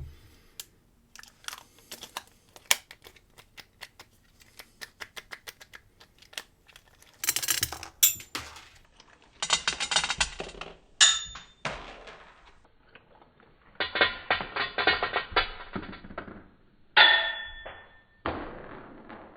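Small metal padlock parts being handled with a screwdriver: a run of light, quick clicks, then several louder clattering handlings, some with brief high metallic rings. Near the end comes a clatter with ringing, fitting the lock's pin tumblers and springs spilling out of the cylinder.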